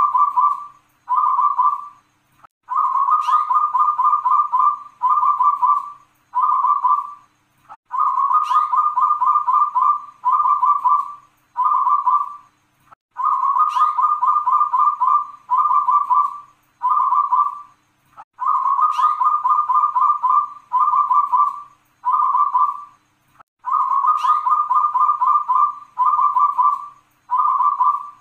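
Local zebra dove (perkutut) singing its repeated cooing song. Each phrase is a long rolling coo followed by three short "kung" notes, about five phrases a few seconds apart.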